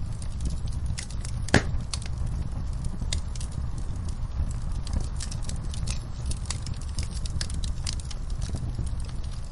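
Wood fire with burning logs crackling: a steady low rumble of flames with scattered sharp pops, one louder pop about one and a half seconds in.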